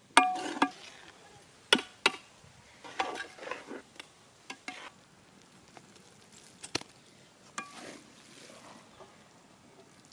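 Metal ladle stirring noodles in a large metal cooking pot: several sharp, ringing knocks of the ladle against the pot, with scraping in between.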